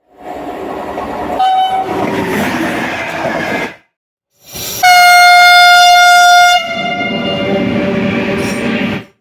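Trains passing through a station with horn blasts. The first train runs by with a short horn toot about a second and a half in. After a sudden cut, a second train gives a loud, steady horn blast of nearly two seconds, and its passing noise follows until the sound cuts off.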